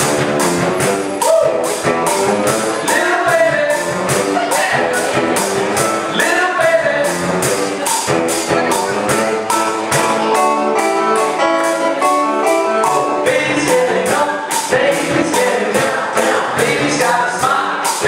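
Live band playing an upbeat children's song: electric guitar, keyboard and mallet percussion over a steady beat, with singing. The song starts right on the count-in.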